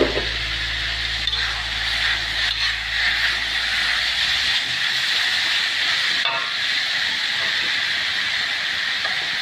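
Shredded yam bean, taro and carrot sizzling steadily as they stir-fry in hot oil, with a low hum under it that stops about halfway through.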